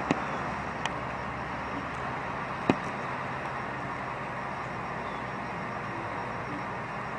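Steady outdoor background noise like distant traffic, broken by a few sharp clicks, the loudest about two and a half seconds in.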